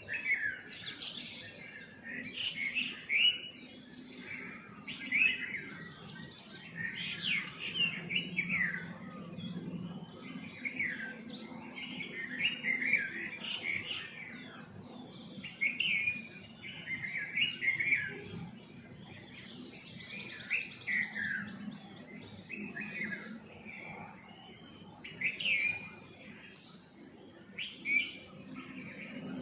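Several small songbirds chirping in a busy morning chorus: a steady stream of short, overlapping chirps and quick sweeping notes, with a brief fast trill about twenty seconds in.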